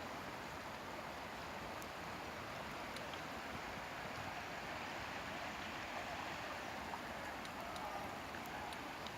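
River water flowing, a steady rushing wash with a few faint ticks.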